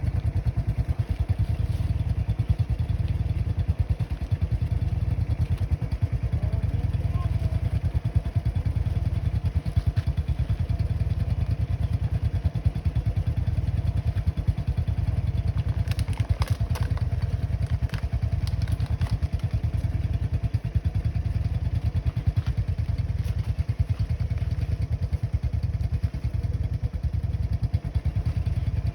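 Motorcycle engine running steadily under load, a continuous low pulsing drone, with a few short clatters around the middle.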